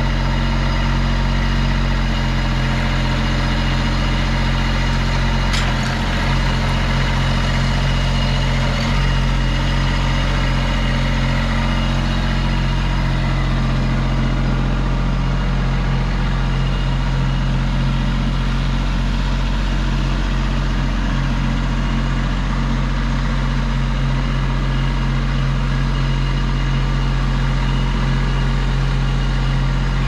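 Kubota compact tractor's diesel engine running at a steady speed while the tractor carries a log in its front-loader grapple.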